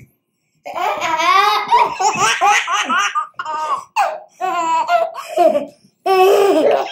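Baby laughing in a string of bouts with short breaks between them, starting a moment in.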